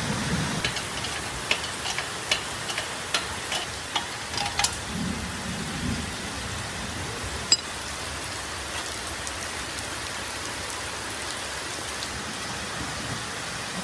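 Steady hiss, with scattered light ticks and taps over the first five seconds, one sharp click partway through, and a soft low rumble near the start.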